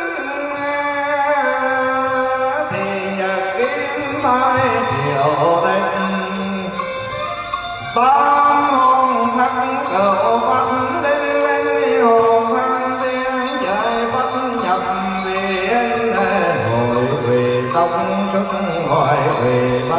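Vietnamese Buddhist ritual chant in the Huế style: a monk's voice holds long notes that slide and turn. Behind it runs a steady high jingling, like a small bell.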